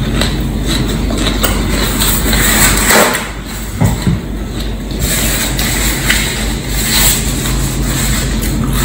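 Close-up crunching and chewing of raw celery stalks, a run of loud crisp crunches bite after bite.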